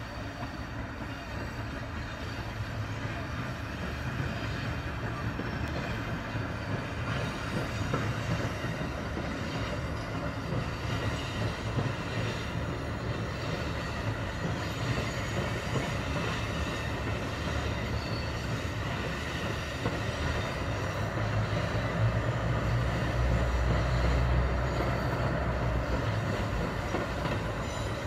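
Diesel limited-express railcar train (JR Central KiHa 85 series Wide View) running slowly along the tracks, with a steady engine rumble and wheel-on-rail noise. The rumble swells loudest about three-quarters of the way through.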